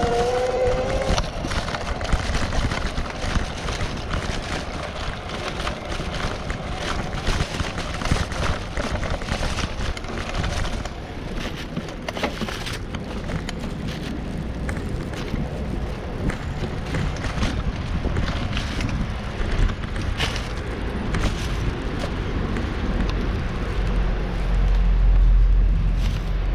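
Footsteps and the rub of a worn camera as its wearer walks, a running stream of soft knocks over steady street noise. Wind rumbles on the microphone near the end.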